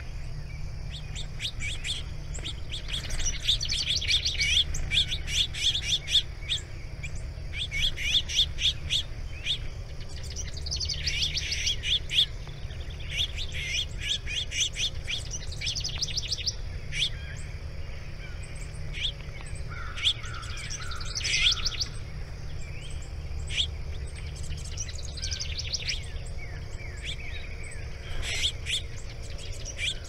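Small songbirds singing in rapid chirping trills, coming in bursts again and again, with a short run of lower notes about two-thirds of the way through, over steady background noise.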